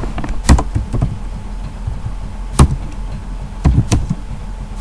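Computer keyboard keys pressed one at a time: a few sharp clicks, one about half a second in, one near the middle and two in quick succession near the end.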